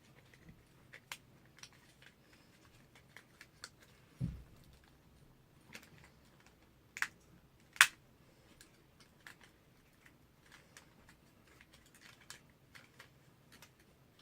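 Plastic camera body being pried and handled apart: scattered small clicks and taps, a dull thump a little past four seconds in, and two sharp clicks about a second apart near the middle, the second the loudest.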